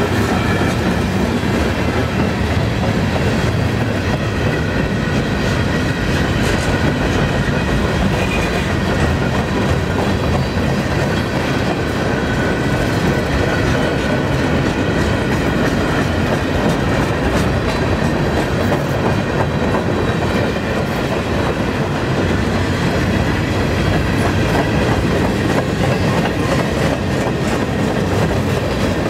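Mixed freight cars of a long train rolling past at close range, a steady rumble and clatter of steel wheels over the rails, with faint high steady tones running through it.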